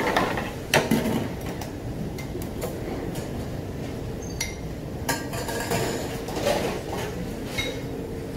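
Metal utensils and dishes clinking and knocking in a noodle kitchen as a cook ladles and strains udon over the boiling pots, scattered sharp clinks over a steady hum.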